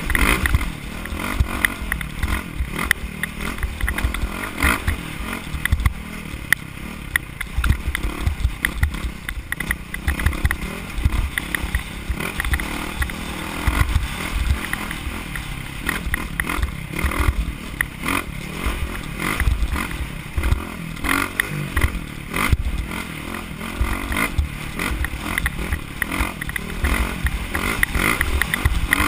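Off-road motorcycle running at speed over a rough dirt track, heard through a helmet camera, with heavy wind buffeting on the microphone and frequent knocks and clatter from the bumps.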